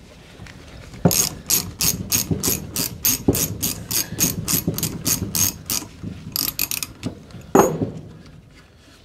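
Socket ratchet wrench clicking at an even pace, about four clicks a second, as it works loose a stiff, rusty brake-pad retaining pin on a motorcycle rear brake caliper. A single louder knock follows near the end.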